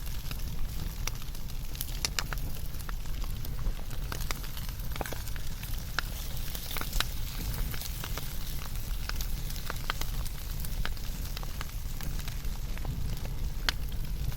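Wood fire burning steadily, with many irregular sharp crackles and pops over a low rumble of flames.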